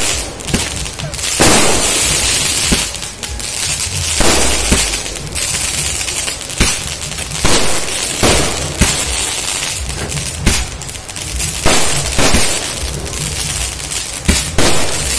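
A 200-shot 'night flower' sky-shot firework cake firing continuously: sharp bangs of launches and bursts about once a second, with loud crackling from the bursting stars in between.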